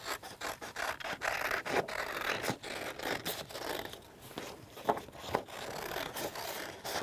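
Scissors cutting through thin card: a quick run of short snips, with the card rustling as it is turned in the hand.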